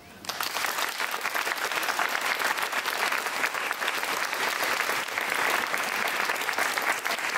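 Audience applause breaking out about a quarter second in and holding steady: a dense, even clapping of many hands.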